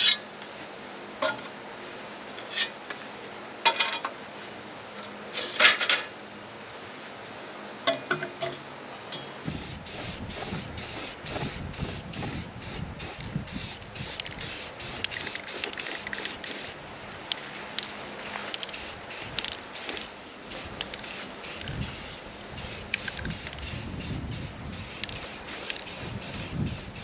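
Sharp knocks on steel, a second or two apart, then, from about a third of the way in, a busier run of short hissing sprays mixed with metal clinks, typical of steel brackets being worked and spray-painted.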